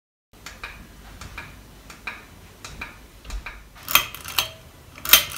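A string of light, irregular clicks and taps in a small room, with two louder clicks near the end.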